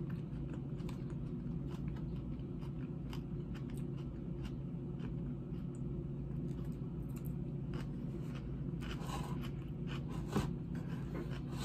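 Close-up chewing of a crunchy salad of romaine lettuce and croutons: wet crunching and small mouth clicks throughout, with a louder crunch about nine seconds in. A steady low hum runs underneath.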